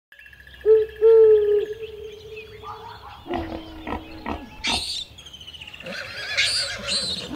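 A string of different animal calls: a held, pitched call about a second in, a lower pitched call a little past three seconds, and rough, noisy calls near five seconds and again between six and seven seconds.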